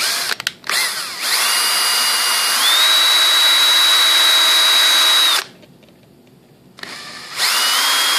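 Cordless drill with a small bit pre-drilling a pilot hole in a composite glider wing. After a few quick blips of the trigger, the motor runs with a steady whine that steps up in pitch partway. It stops about five seconds in and starts up again near the end.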